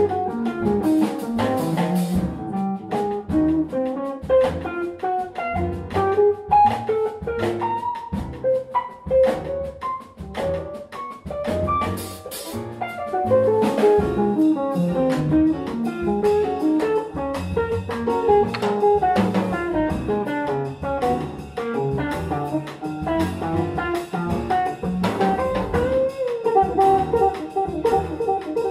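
Jazz guitar solo: a guitar improvising quick running melodic lines over a big band's drum kit.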